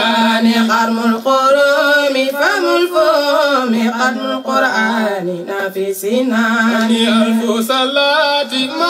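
Islamic devotional chant sung by voices in long held notes that slide and waver between pitches.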